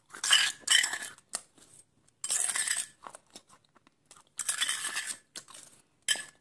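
Close-miked crunching as a person bites and chews a crunchy food taken by spoon from a steel bowl. It comes in four bursts about every two seconds, with short quiet gaps between them.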